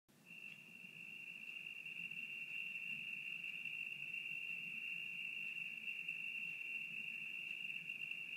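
Crickets chirping at night in a steady high-pitched trill that fades in over the first couple of seconds.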